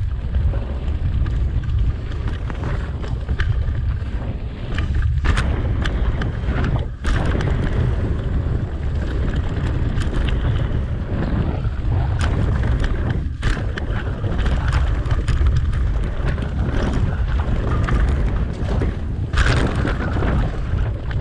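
Wind buffeting the microphone of a mountain bike's camera while riding a dirt singletrack, with the tyres rolling over dirt and leaves. Frequent clicks and knocks as the bike rattles over bumps.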